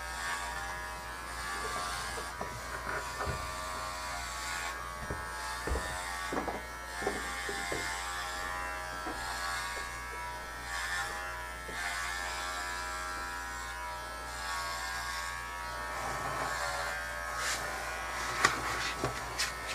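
Cordless pet hair clippers buzzing steadily as they shear through a dog's coat, with scattered short clicks.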